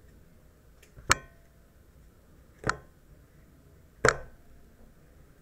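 Three sharp taps about a second and a half apart, from a deck of tarot cards being knocked against the tabletop.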